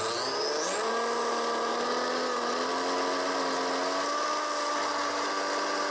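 Home-built mini table saw with a 24 V DC motor cutting MDF. The motor's whine drops in pitch about a second in as the blade bites, then holds at the lower pitch: the saw is slowing under the load, which is taken for the cheap blade rubbing against the MDF.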